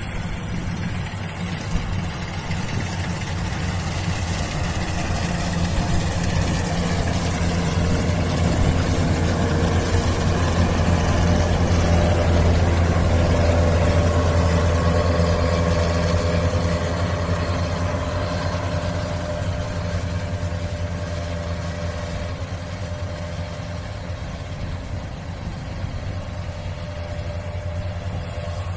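Kubota DC-93 combine harvester's diesel engine running steadily while harvesting rice, with a deep hum that grows louder as the machine comes close about halfway through, then fades as it moves away.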